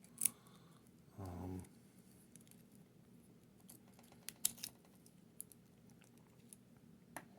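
Scattered small metallic clicks and taps from handling the parts of a cut-open laminated steel padlock as its inner cam is turned. A brief hummed voice sound comes about a second in.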